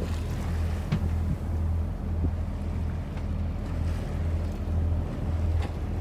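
A boat's engine running with a low, steady drone that swells and dips about once a second, with wind buffeting the microphone and water lapping.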